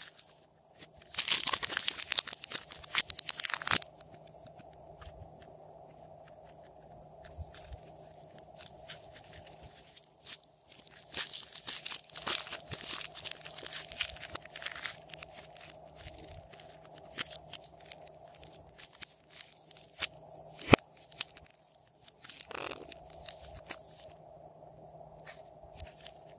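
Soft slime and foam clay being pulled apart and squeezed by hand, making sticky crackling and tearing sounds. There are two spells of dense crackle a few seconds long, about a second in and again about eleven seconds in, then scattered clicks and pops.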